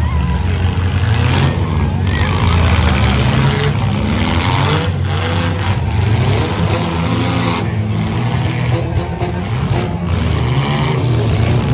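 Demolition-derby compact cars revving their engines hard as they push and ram each other, with a few sharp bangs of car bodies hitting.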